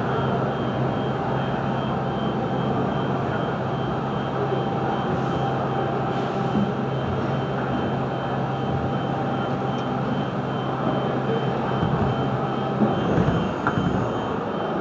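A Miyano BNE-51MSI CNC lathe running, a steady low hum with a faint whine, over a steady background din. The hum and whine stop about thirteen seconds in.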